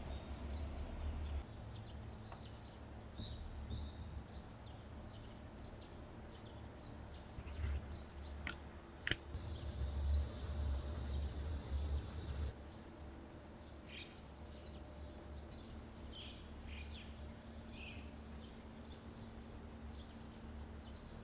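A handheld butane torch clicks twice as it is lit, about eight and a half seconds in, then hisses steadily while heating a brass logo stamp. The hiss drops lower about three seconds later and stops a few seconds after that. Faint bird chirps come and go throughout.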